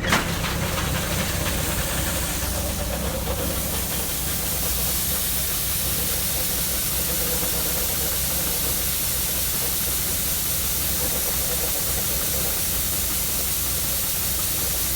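Combine harvester running under load while cutting wheat: a steady low engine drone under the dense hiss and whir of the header and threshing machinery. A sharp click right at the start.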